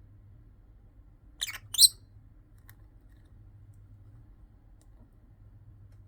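Rosy-faced lovebird giving two short, shrill calls in quick succession about a second and a half in, the second louder. The owner hears this call only when the two birds are together and takes it for happiness or courtship.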